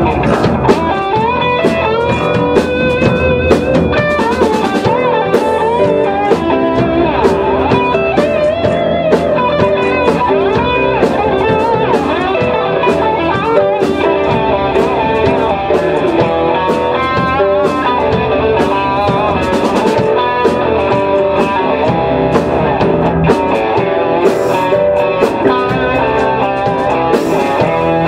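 Rock band playing an instrumental passage: electric guitar lines over bass guitar, a drum kit with frequent cymbal hits, and electric keyboard, at a steady loud level.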